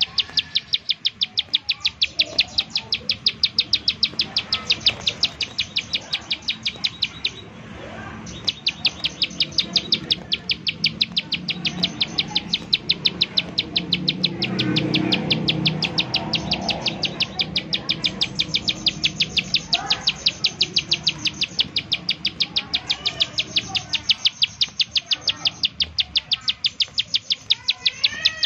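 Plain prinia (ciblek sawah) giving its fast 'nembak' call: a dry, even, rapid series of sharp clicking notes that runs on with one short break about eight seconds in. Fainter chirps of other birds sound beneath it.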